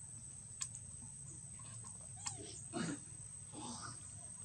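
Macaques making a few short, soft calls and snuffles, the most prominent a little past two and a half seconds in and again just before the end, over a steady high-pitched background tone.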